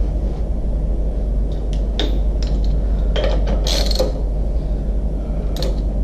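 Metal clinks and short scrapes of a BMX front peg and a socket wrench being worked onto the front wheel's axle, with several sharp clicks scattered through, over a steady low hum.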